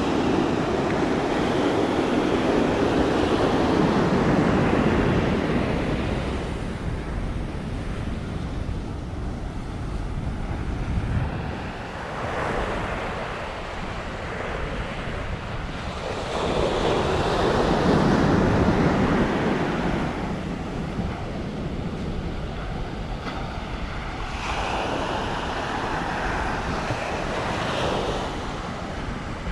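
Sea surf breaking and washing up the shore, swelling and fading every several seconds, with wind rumbling on the microphone.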